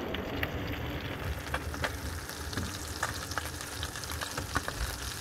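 Anchovies frying in a pan: a steady sizzle broken by frequent crackles and pops of the hot oil.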